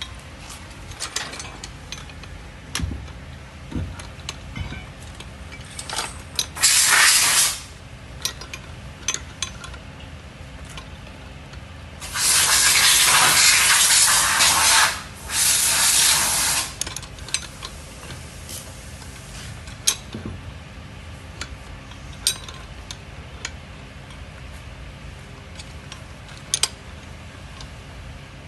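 Scattered light metallic clicks and clinks of a hand wrench working a bolt on a steel bracket, with two loud bursts of rushing hiss, a short one about seven seconds in and a longer one from about twelve to seventeen seconds.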